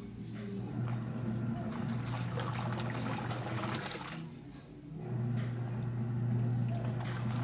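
Seagull HaiOu washing machine agitating a load of towels in water: the motor hums and water sloshes, the motor stops for about a second near the middle and then starts again, typical of the wash action reversing direction.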